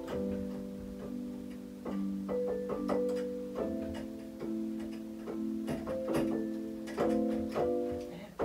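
Electronic keyboard playing slow held chords, the chord changing about every second, with a faint key click at each change.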